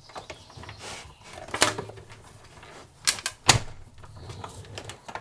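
Manual die-cutting and embossing machine feeding a cutting-plate sandwich with a steel die through its rollers, cutting a wavy border from cardstock. A low steady rumble runs under it, with several sharp plastic clacks, the loudest about a second and a half in and around three to three and a half seconds in.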